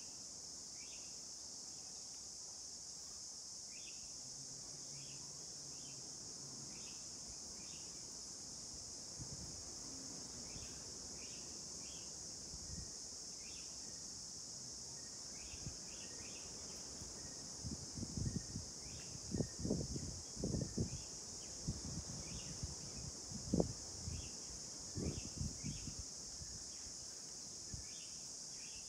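Steady high-pitched insect chorus with short chirps scattered every second or so above it. In the second half comes a run of low muffled thumps, the loudest sounds here.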